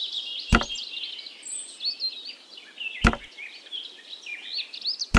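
Birds chirping continuously, with three sharp knocks about two and a half seconds apart as miniature clay-brick walls are set down.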